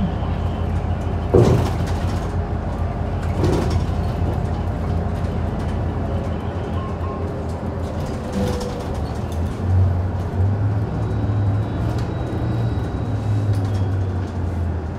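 Cabin sound of a Hyundai Super Aero City city bus on the move: a steady low engine and road drone, with two short knocks or rattles about one and a half and three and a half seconds in. Near the end the drone settles into a steadier low hum as the bus slows.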